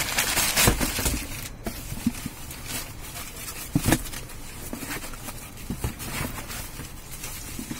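Plastic bag and foam wrapping crinkling and rustling against a cardboard box as a packed part is unwrapped by hand, in irregular handling noises with louder crackles about half a second in and again near four seconds.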